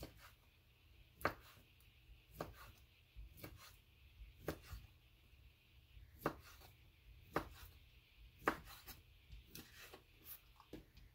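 Kitchen knife slicing two kielbasa sausages into rounds on a wooden cutting board. Each cut ends in a faint, sharp tap of the blade on the board, roughly once a second.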